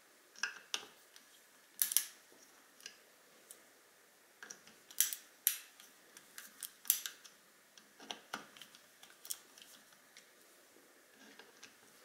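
Small screwdriver driving the cap screws into scope rings: a string of irregular sharp clicks and ticks as the screws are set and turned.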